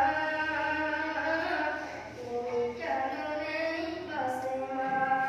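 A group of boys chanting together in unison, with long held notes that step from one pitch to the next.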